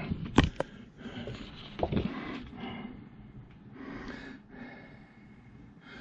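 Handling noise: a few sharp clicks and knocks in the first couple of seconds, then soft rustling of paper and plastic as a glossy mailer is slid out and handled.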